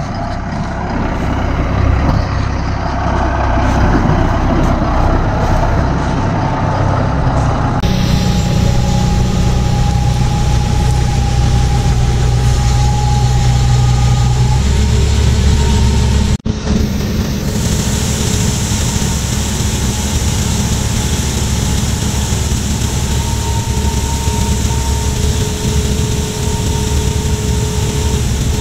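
Heavy diesel farm engines running steadily while a J&M grain cart's auger unloads shelled corn into a semi's grain trailer, with a steady whine over the engine noise. The sound changes abruptly twice, about eight and sixteen seconds in.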